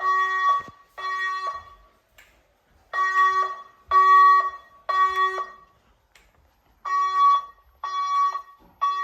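EST air horn alarm tone played through fire alarm speaker strobes, a buzzy horn sounding in groups of three short blasts with a pause between groups: the temporal-3 evacuation pattern sounded between voice evacuation announcements.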